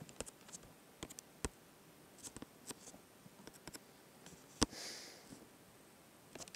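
Faint, irregular taps and clicks of a fingertip typing on a tablet's touchscreen keyboard, with a brief soft hiss about five seconds in.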